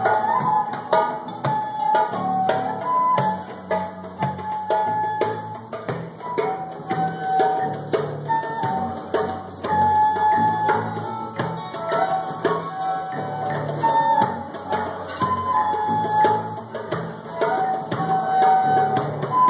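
Live improvised jam: a flute plays a slow melody of held notes over quick hand-drum strikes, with sustained low notes underneath.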